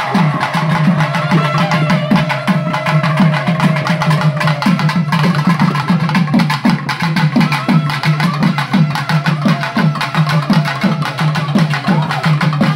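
Festival drumming: fast, even drum beats, with a long held high note over the first few seconds.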